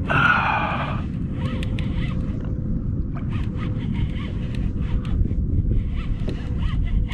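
Fishing reel working as a hooked fluke is fought on the line, with a brighter burst of reel noise in the first second and small repeated ticks after. Under it runs a steady rumble of wind and water on the microphone.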